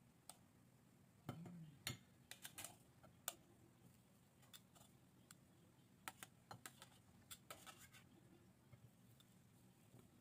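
Metal kitchen tongs clicking as they open and close and tapping against a ceramic plate and a glass baking dish while potato slices are picked up and laid down. Light, scattered clicks, bunched in two spells.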